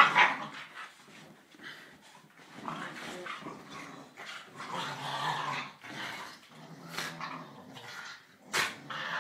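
Two Staffordshire bull terriers play-fighting, growling in repeated bouts, with a short loud bark right at the start and another sharp yap near the end.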